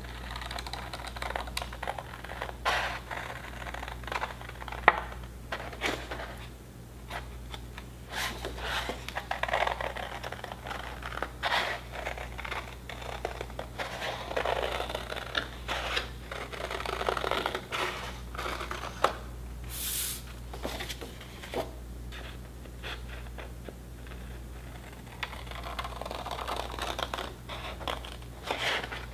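Small scissors snipping through a sheet of drawing paper in short, irregular cuts, with the paper rustling as it is turned, and one sharper click about five seconds in.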